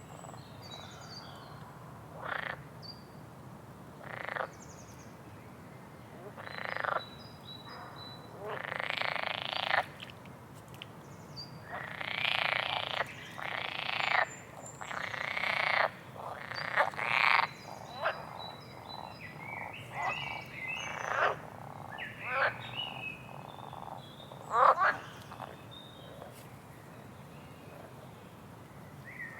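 Frogs croaking: an irregular run of calls, some short and some lasting about a second, bunched most thickly in the middle. Faint high bird chirps come between them.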